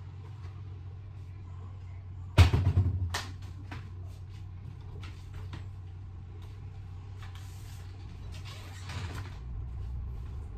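Kitchen cupboard sounds: a loud bang about two seconds in, followed by a few clicks and knocks, then a rustle near the end, over a steady low hum.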